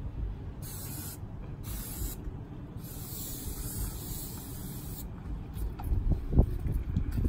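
Aerosol can of wash-off chalk spray paint hissing in three bursts: two short ones of about half a second, then a longer one of about two seconds. A few low thuds follow near the end.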